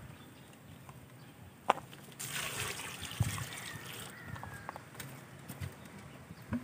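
Water poured from a plastic dipper into a metal cooking pot full of sliced young jackfruit, splashing onto the pieces for about two seconds. A single sharp knock comes just before the pour.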